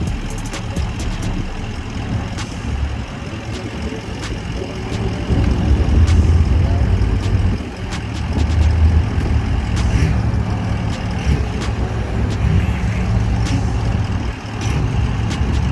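Car engines running as cars drive slowly past, a deep steady rumble that grows louder about five seconds in and stays up, dipping briefly near the end.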